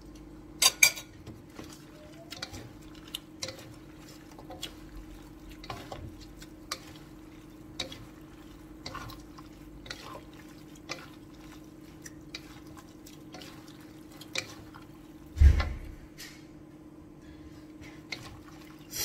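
Wooden spatulas knocking and scraping against a wok while stir-fried vegetables and shrimp are tossed: irregular clicks and knocks about once a second, with a heavier thump about fifteen seconds in.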